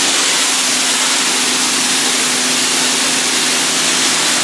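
Pressure washer spraying a jet of water onto concrete: a loud, steady hiss of the spray over the steady hum of the washer's pump motor.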